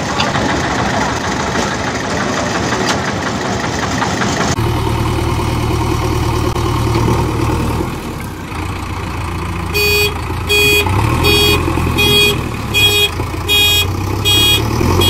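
Vehicle engine running, cutting abruptly about four and a half seconds in to a steady, deeper idle. From about ten seconds in, a high electronic beep repeats about one and a half times a second over the idle, like a reversing alarm.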